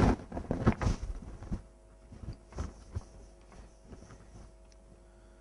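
A whiteboard duster wiping across the board in a run of short rubbing strokes that fade out after about four seconds.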